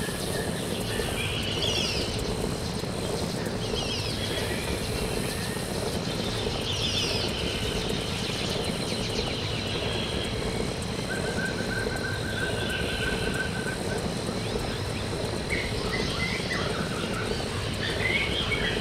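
Birds chirping and calling in short, repeated phrases over a steady rushing background noise, with a brief rapid trill about halfway through.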